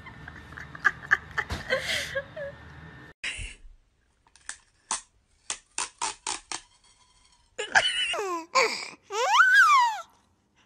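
A cat meowing: a few short calls, then one long meow that rises and falls in pitch near the end. Before the calls comes a run of short, sharp clicks.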